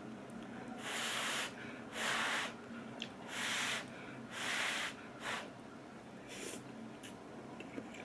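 A person slurping ramyeon noodles in short, hissy draws, about six in the span, with quieter pauses between.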